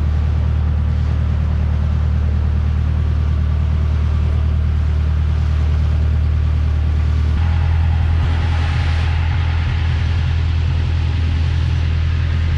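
Boat engine running steadily with a low drone; its tone shifts slightly about seven and a half seconds in, and a brief hiss rises over it a moment later.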